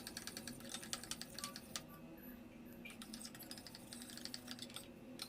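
Rapid light clicks and taps of a utensil stirring glue slime mixture in a small container. The clicks are densest for about the first two seconds, then thin out.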